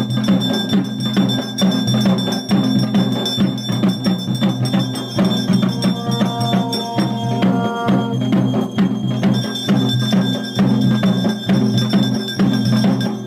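Traditional procession music: fast, steady drumming with ringing bells and metal percussion, and a steady high ringing tone throughout. About six seconds in, a held pitched note joins for roughly two seconds.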